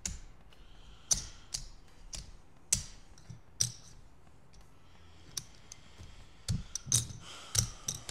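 Casino chips clicking against each other as they are picked up and stacked by hand: a string of sharp, irregular clacks, roughly one every half second to a second, with short pauses between.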